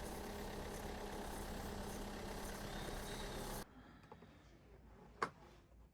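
Steady mechanical hum with a constant low drone, like an idling engine, that cuts off suddenly about three and a half seconds in. Faint room tone follows, with one sharp click near the end.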